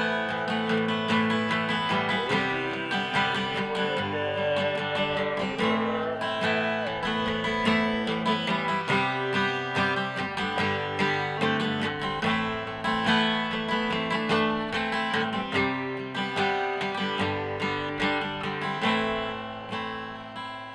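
Acoustic guitar strummed in a steady rhythm: an instrumental break between the sung verses of a country-style ballad.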